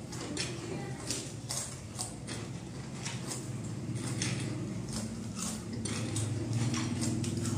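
Irregular crisp clicks and crunches as Kurkure corn snacks are scooped by hand off steel plates and eaten, with light metal scraping, over a steady low hum.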